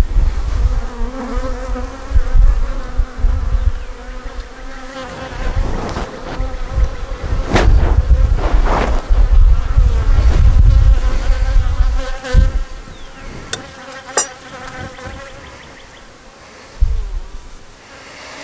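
Honeybees buzzing over an open hive, a steady pitched hum, while wooden frames are pushed and slid back into the box, with a couple of sharp clicks a little past the middle. Bouts of low rumbling come and go, loudest in the first few seconds and again around the middle.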